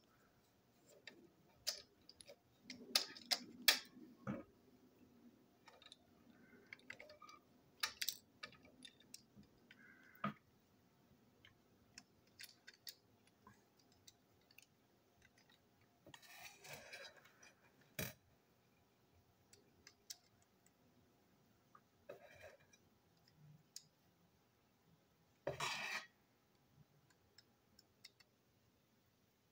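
Irregular light clicks and clatters of small plastic and metal parts as a model diesel locomotive is taken apart by hand: wheelsets worked out of the plastic chassis and a small screwdriver used on it. Two longer, louder scraping rustles come about halfway through and near the end.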